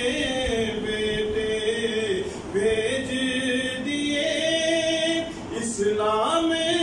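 A man reciting a naat unaccompanied, holding long sung notes that glide slowly up and down in pitch, with a short break near the end before the next phrase begins.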